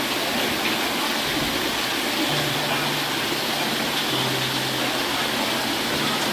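Steady rushing of running water, an even hiss-like splash that doesn't change.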